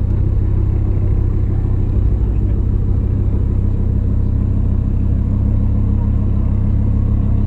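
Car engine running steadily at low revs, a loud, low rumble with no revving.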